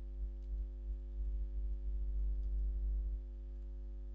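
Steady electrical mains hum, with irregular soft low thuds of computer keyboard typing for the first three seconds or so.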